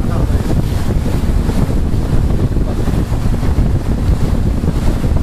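Wind buffeting the camera microphone: a loud, steady, irregular low rumble.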